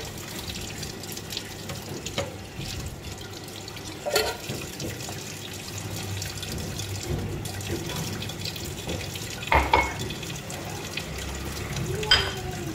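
Water running in a kitchen sink as dishes are washed by hand, with a few clinks and knocks of glassware and dishes, about four, nine and a half and twelve seconds in.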